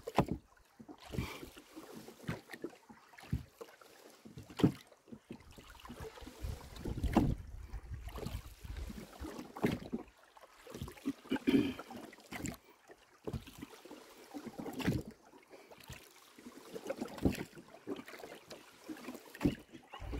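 Rowboat under oars at a steady stroke: a knock of the oars in their oarlocks and a swirl of water about every two and a half seconds, with some wind buffeting the microphone.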